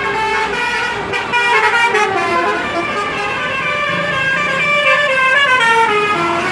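Bus telolet horn of the Basuri type playing a tune in stepped notes, the melody falling in pitch in its second half.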